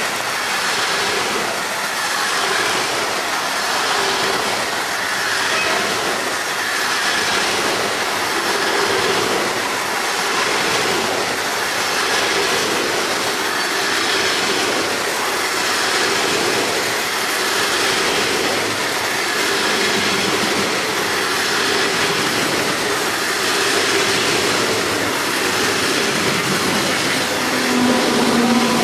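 Freight train of flat wagons carrying swap bodies passing close at speed: a steady, loud rumble and rattle of wheels on rail with rhythmic clatter over the joints. Near the end a passenger train passes on the nearer track, and the noise swells.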